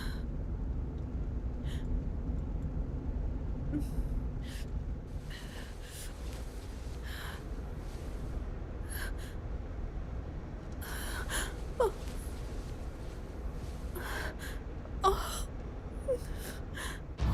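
Short gasping breaths and a few brief whimpers over a steady low rumble.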